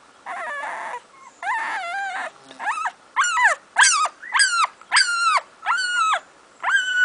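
Very young puppy crying: two rougher whines at first, then from about three seconds in a string of loud, high-pitched cries about one a second, each rising and then dropping in pitch.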